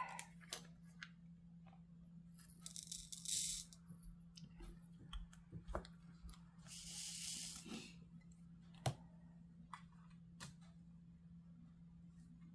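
Pink resin diamond-painting drills poured into a plastic sorting tray and jiggled there: two short rattling hisses, about three and seven seconds in. A few faint clicks follow.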